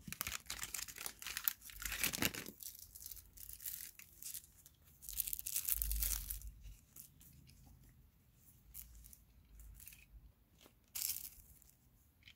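Packaging rustling, crinkling and tearing in dense bursts for the first six or seven seconds, then a few scattered light clicks of handling.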